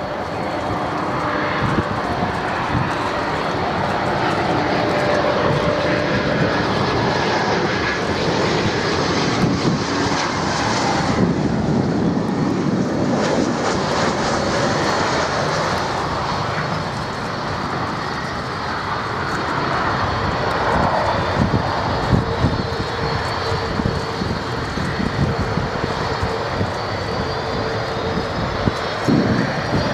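Twin turbofan engines of a British Airways CityFlyer Embraer E-Jet airliner running steadily as it makes its final approach and lands, with a faint rising whistle in the later part.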